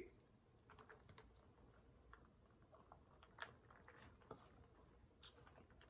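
Near silence: room tone with a few faint, scattered small clicks, the loudest about three and a half seconds in.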